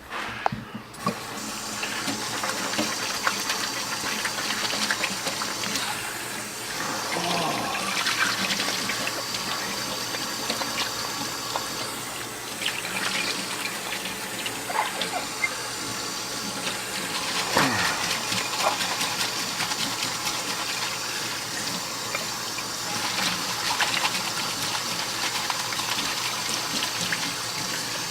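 Water running steadily from a tap into a sink, starting about a second in, with scattered short clicks and knocks.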